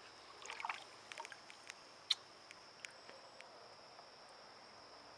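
Faint small splashes and clicks of shallow creek water as a caught smallmouth bass is eased back in for release, with a short flurry of splashing about half a second in and a sharper click a little after two seconds. A steady high insect drone runs underneath.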